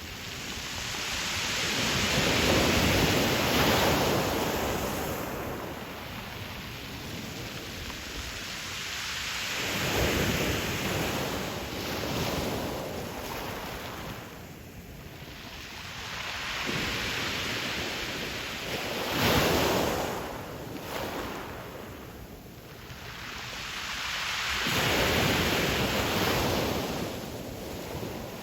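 Pacific Ocean waves breaking on a pebble beach. Four surges swell and fall away every six to nine seconds, with a steady wash of surf between them.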